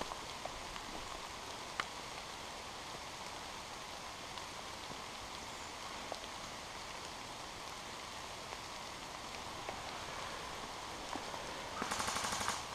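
Steady patter of rain in woodland with a few scattered faint clicks. Near the end comes a short, rapid burst of evenly spaced shots, like an electric airsoft gun firing on full auto.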